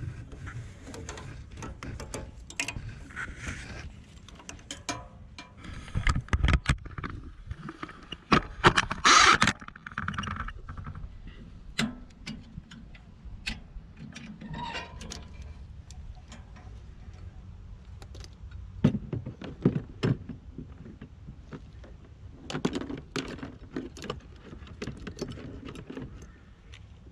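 Scattered clicks, knocks and clatter of tools and metal parts being handled at a portable sawmill, with a louder scraping rush about nine seconds in, over a low rumble.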